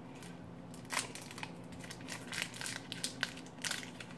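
Crinkling and crackling of an Epic Bar's wrapper being torn open by hand and the meat bar pulled out, in irregular sharp crackles: one about a second in, then a busier run in the last two seconds.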